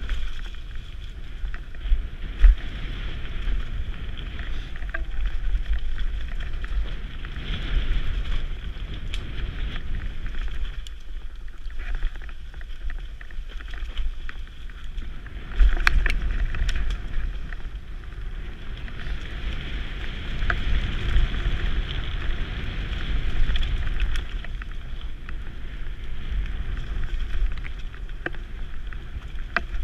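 Mountain bike rolling fast down a dirt trail strewn with dead leaves and snow, heard from a helmet camera: a steady rumble of wind on the microphone and tyres on the rough ground, with sharp knocks about two seconds in and again around sixteen seconds. The noise eases for a few seconds past the middle.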